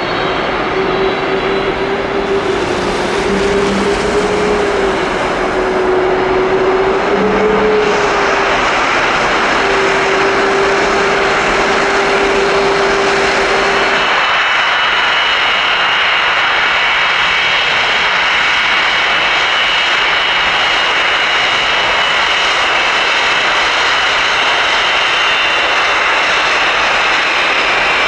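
Jet airliner's engines running loud and steady, a dense roar with a wavering low hum that stops about halfway through, after which a high whine takes over.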